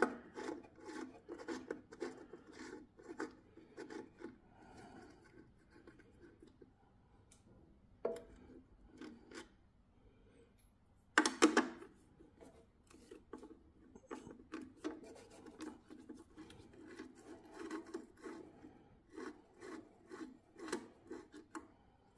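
Nut driver turning and scraping on the terminal nuts of a generator's winding leads inside a sheet-steel terminal box: faint, irregular small clicks and rubbing, with one louder clatter about halfway through.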